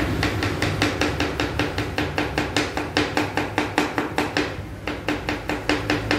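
Kitchen knife chopping vegetables on a cutting board: quick, even knocks at about four to five a second, with a short break about three-quarters through before the chopping picks up again.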